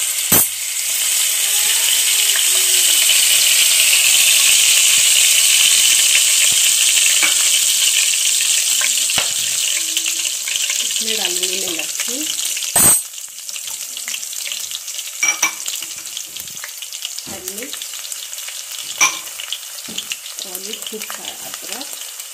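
Carom seeds and then chopped garlic, ginger and green chilli sizzling in hot mustard oil in an aluminium kadai: a loud, dense hiss that drops to a quieter sizzle after a sharp metallic knock about halfway through, with a few lighter clicks later.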